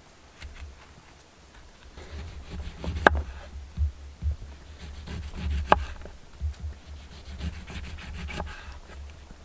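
Rubbing and handling noises with scattered ticks and two sharp knocks, one about three seconds in and one near six seconds, over an uneven low rumble.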